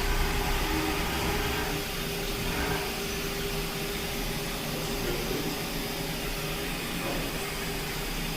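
Steady machine noise: an even hiss with a constant mid-pitched hum running beneath it.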